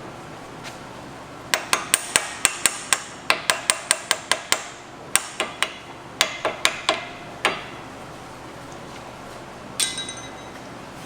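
Quick light hammer taps on metal brake caliper parts, each with a short metallic ring, seating the new pads so their pin holes line up. About twenty taps come in uneven runs at roughly three a second, then one more tap near the end.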